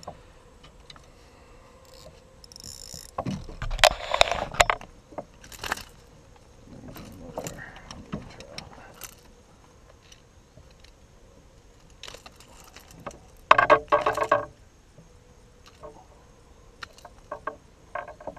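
Irregular clicks, rattles and knocks of fishing gear being handled in a canoe while a caught fish is brought in, with louder clattering bursts about four seconds in and again near fourteen seconds.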